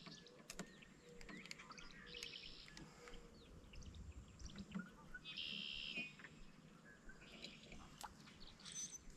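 Faint birds calling: scattered short chirps and several buzzy trills, the longest and loudest trill about five to six seconds in, with a few faint clicks in between.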